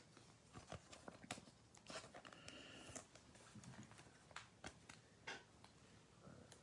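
Near silence with faint, scattered clicks and light rustles of trading cards and card packaging being handled.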